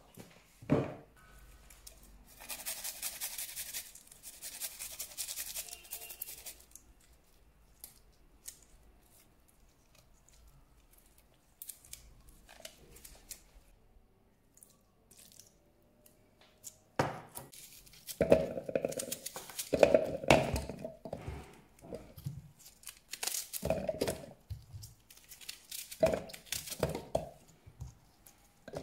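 Kitchen food-preparation handling sounds. A knock about a second in is followed by a few seconds of fine rustling hiss as seasoning goes onto raw chicken in a stainless steel bowl. From about halfway on comes a busy run of crisp tearing and knocking sounds as onion is handled and dropped into a plastic chopper bowl.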